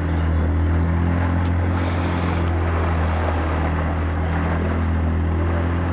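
Small boat's outboard motor running at a steady speed, a constant low drone. Water rushes and splashes along the hull underneath it.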